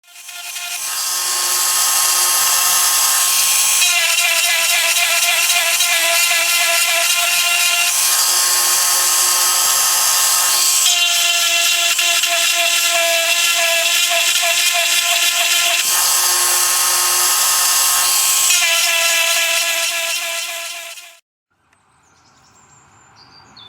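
Granberg G1012X electric chainsaw-chain grinder running, its wheel grinding the chain's teeth. The steady motor whine and grinding hiss change character every few seconds, then cut off near the end.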